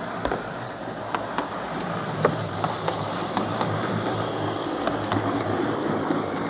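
Model electric multiple-unit train running past on garden model railway track, with a steady hum and irregular sharp clicks, growing slightly louder as it draws near.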